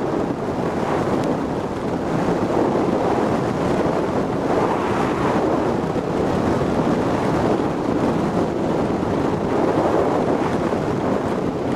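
Boat running on the water under its 115 hp Mercury two-stroke outboard: a steady rush of wind on the microphone and water, with no breaks.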